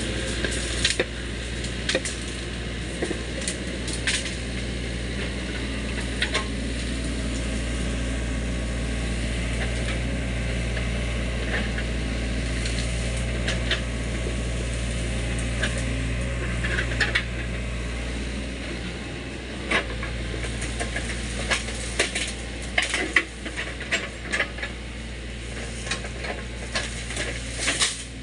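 SANY SY55 mini excavator's diesel engine running steadily under load as the machine crawls through a bamboo thicket. Over it come irregular sharp cracks and clicks of bamboo and branches snapping, most frequent in the second half.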